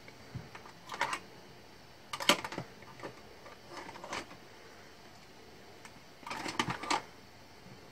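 Plastic craft supplies (markers, pens and small bottles) clicking and clattering as a hand rummages through a clear plastic storage bin, in several short bursts of rattling about a second apart, the longest near the end.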